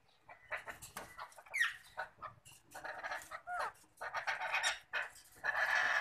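Alexandrine parakeets (pahari parrots) calling: short chirps and clicks, a couple of falling whistled notes in the first half, then harsh rasping squawks that get louder toward the end.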